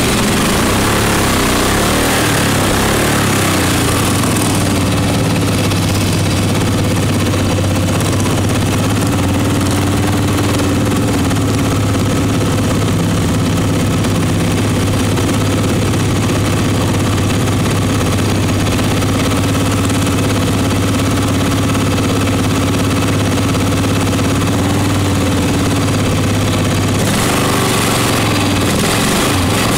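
Racing riding lawn mower's small engine idling steadily close to the microphone, a constant low hum. It sounds busier and less even for the first few seconds.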